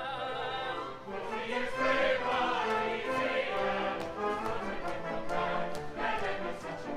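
Operetta chorus singing with an orchestra in a live stage performance, with sharp percussive taps coming through the music in the second half.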